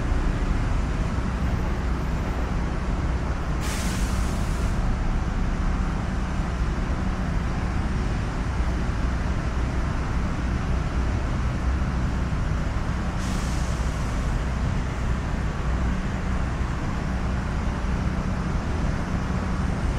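Steady road traffic rumble, with two brief high hisses about four seconds and thirteen seconds in.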